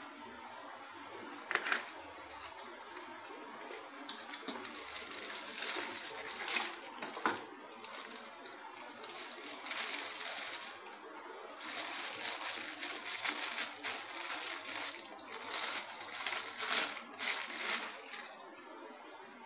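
Clear plastic wrap crinkling and crackling as it is pulled off a plastic knife sharpener, in bursts with short pauses. A single sharp click comes near the start.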